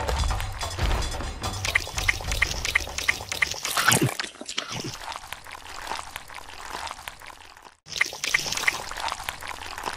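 Water trickling and splashing over a wet muddy surface, with many small wet clicks and a few short high chirps. It cuts out for a moment near the end and then starts again.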